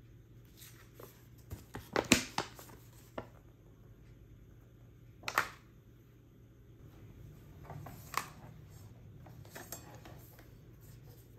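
Handling noise from the solar street light, its paper leaflet and bag of bolts on a wooden table: a cluster of sharp clicks and taps about two seconds in, another single tap near the middle, then softer knocks and rustles as the lamp is lifted and turned over.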